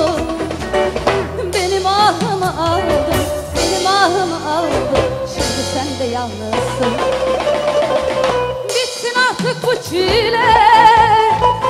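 Live Turkish pop-folk song: a woman singing into a handheld microphone, her melody bending and ornamented, over a band with a drum kit beat.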